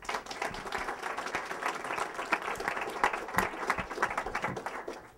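Audience applauding: many people clapping at once, dying away near the end.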